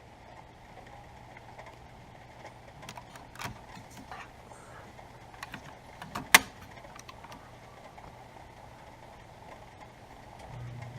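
Scattered clicks and small knocks, the loudest a sharp click about six seconds in, then near the end a York gas furnace starting up with a steady low hum.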